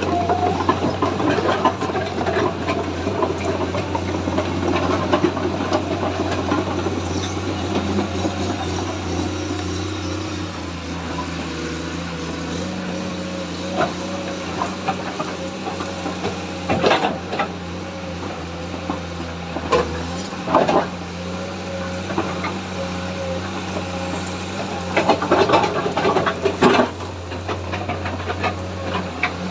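Komatsu excavator's diesel engine running steadily, its pitch shifting about a third of the way through, with several sharp knocks in the second half.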